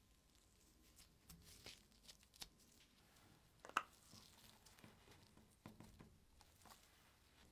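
Faint handling noises: soft rustles and light ticks, with one sharper click about four seconds in.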